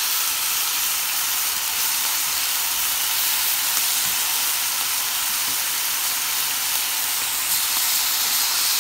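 Slices of marbled beef searing in a frying pan, sizzling steadily.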